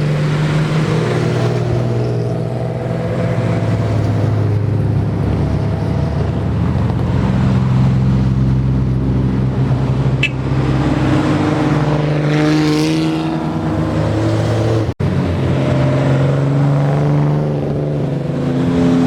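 Engines and exhausts of old Japanese cars running at low speed, a steady deep exhaust note that swells and shifts in pitch as cars move. The sound drops out for an instant about fifteen seconds in.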